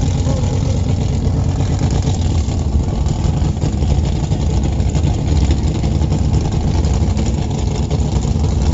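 Mud bog vehicle's engine running steadily at low revs in the mud pit.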